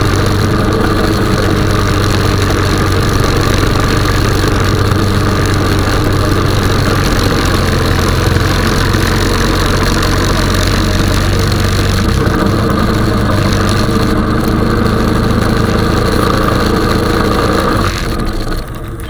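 Honda 420 ATV's single-cylinder engine running steadily while plowing snow. Its note shifts about twelve seconds in, and it gets quieter near the end.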